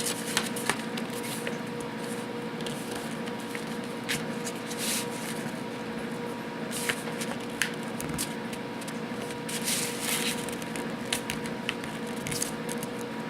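Thick paper being folded and creased by hand: scattered crinkles and short rustles, over a steady background hum.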